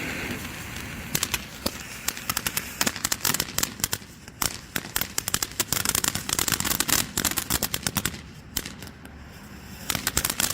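Magnus 3 Minute Madness 200-gram fountain firework spraying, its hiss giving way about a second in to dense, rapid crackling. The crackle thins out briefly near the end, then picks up again.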